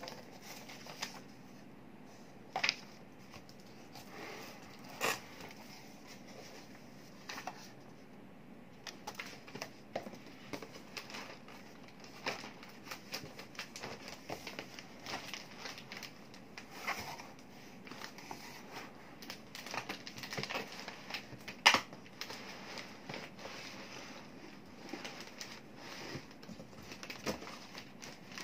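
Cardboard box flaps and plastic air-column packaging being handled: irregular rustling and crinkling broken by sharp clicks and taps, the loudest tap about two-thirds of the way through.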